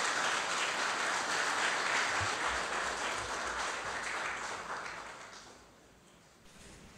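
Congregation applauding at the close of a homily, a dense patter of clapping that fades away after about five seconds.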